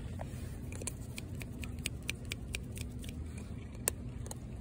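A cat crunching dry kibble: a run of crisp crunches, about four to five a second, then a sharper single crunch near the end, over a steady low hum.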